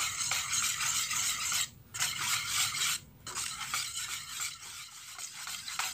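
Serabi batter being stirred in a mixing bowl, with a utensil scraping and swishing steadily against the bowl to work out the lumps. The stirring breaks off briefly twice and grows a little quieter towards the end.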